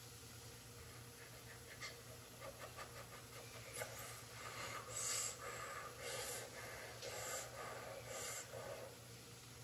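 A metal spoon clicking lightly against a stainless steel pan, then a person puffing breath in and out through the mouth while tasting just-cooked, hot curry: four or five breathy puffs about a second apart.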